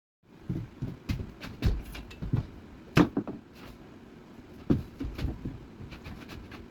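Irregular knocks and thumps over a steady background noise, starting abruptly just after the start, with the loudest knock about three seconds in.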